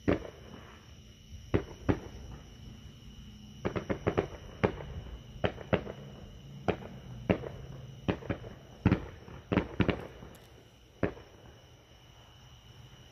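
Fireworks display going off: about twenty sharp bangs at irregular spacing, with a rapid cluster of reports about four seconds in; the last bang comes about eleven seconds in.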